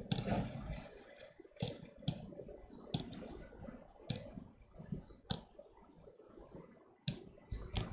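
Computer mouse clicks: about six single clicks, spaced irregularly a second or so apart.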